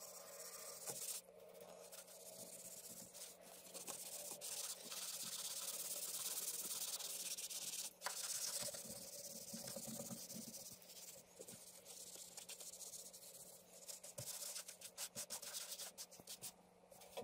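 Continuous rubbing and scraping, louder for several seconds in the middle, with a few light clicks.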